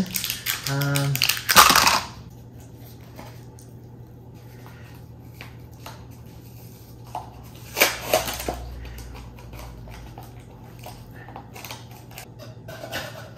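A plastic supplement tub being opened by hand, its lid and seal worked loose. Scattered small clicks, scrapes and crinkles run through, with a loud sharp burst about a second and a half in and two more close together about eight seconds in.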